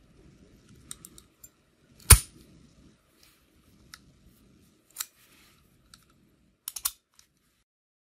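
Master 178D code-wheel combination padlock being worked with a thin pick tool: a scatter of small metal clicks and taps over faint handling rustle. The loudest is a single sharp click about two seconds in, as the shackle springs open, and a quick cluster of clicks comes near the end.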